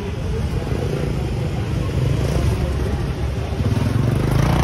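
A vehicle engine running close by, a low rumble that grows louder in the second half.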